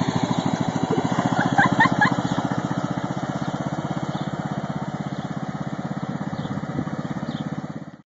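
A small engine running steadily with a fast, even chug, fading out just before the end.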